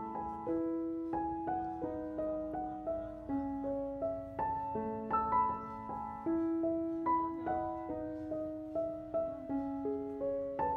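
Background piano music: a slow melody of single struck notes, each fading away, over lower held notes.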